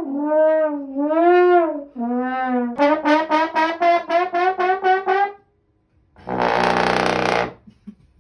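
Comedic brass-style sound effect: swooping, sliding notes, then a quick run of short staccato notes, and after a short pause a loud buzzy blast about six seconds in.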